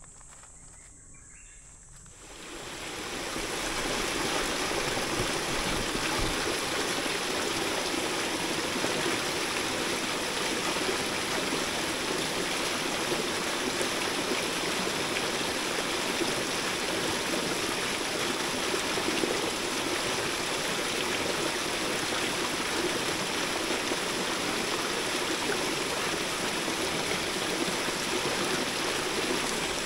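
Small forest stream running over rocks and pouring through a short cascade into a pool: a steady rush and splash of water that comes up about two seconds in after a quiet start.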